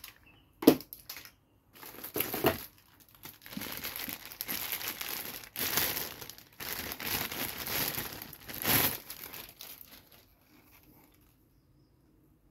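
Clear plastic packaging bag crinkling and rustling as it is handled and pulled out of a box, in irregular bursts over several seconds, with a sharp knock of hard packaging under a second in.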